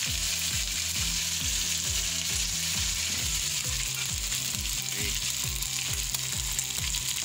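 Tomato sauce frying and sizzling in a metal pot over a wood fire, a steady sizzle with a low pulsing hum underneath.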